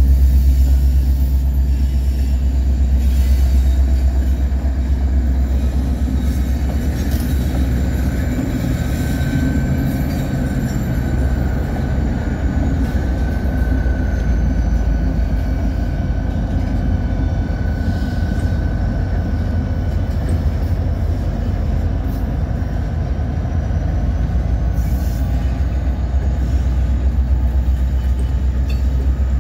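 Trailing diesel locomotives of a freight train, a GE ES44AC and then an EMD SD40-2Q, passing close by with a loud, steady deep engine rumble, followed by freight cars rolling past. A faint high thin squeal runs through the middle of the passage.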